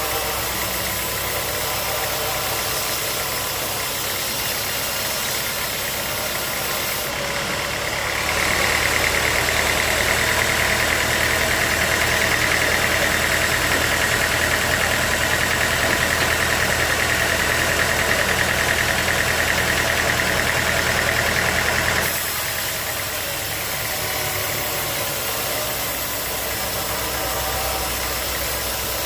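Sawmill machinery running steadily. From about 8 to 22 seconds a louder, higher whine takes over as the saw cuts through the teak log, then it falls back to the running sound.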